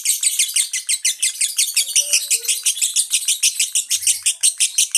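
Lovebird singing an unbroken run of rapid, shrill chirps, about ten a second: the fast, continuous chattering song that lovebird keepers call 'konslet'.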